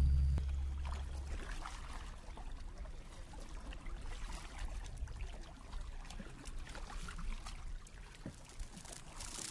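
Small waves lapping and trickling against a plastic kayak hull, with scattered little splashes and drips. A low electronic drone fades away in the first second or so.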